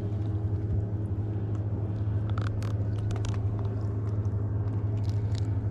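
A boat's motor running steadily with an even low hum, with scattered light clicks and taps over it.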